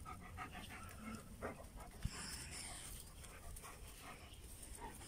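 A large dog panting with its mouth open, a run of quick, faint breaths.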